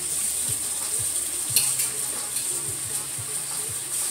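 Cabbage and kale sizzling in a pan on a very hot stove burner: a steady frying hiss, with one sharp tap about one and a half seconds in.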